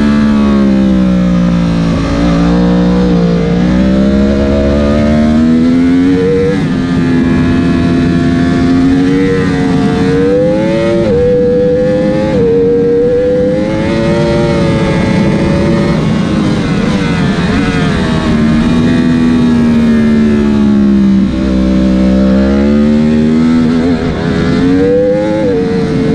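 Onboard sound of a Yamaha YZF-R1 superbike's inline-four engine at race pace: it revs up hard through the gears, the pitch dropping in quick steps at each upshift, then falls as the bike slows for a corner and climbs again near the end. Wind rush over the fairing runs underneath.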